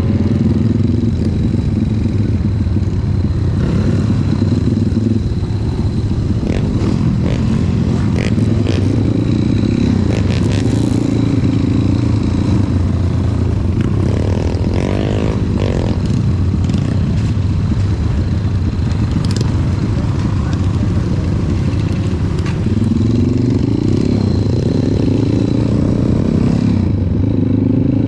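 Trail motorcycle engine running, its pitch going up and down with the throttle, with occasional short knocks.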